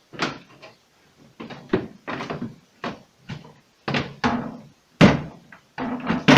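Refrigerator drawers and inner parts being pulled out and handled: a run of knocks, clatters and thumps, the loudest about five seconds in and near the end.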